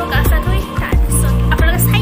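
Background music with a steady, bass-heavy beat.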